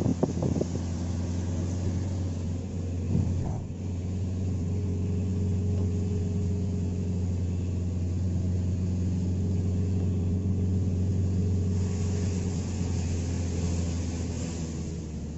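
Car engine running at a steady pitch, heard from inside the cabin, over a steady hiss of rain and tyres on a wet road.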